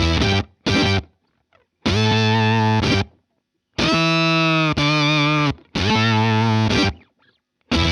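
Electric guitar played through an Earthquaker Devices Bit Commander octave-synth fuzz into a Vox AC30 amp. It plays short phrases that cut off abruptly into silence. In the middle, one held note bends up and then wavers with vibrato.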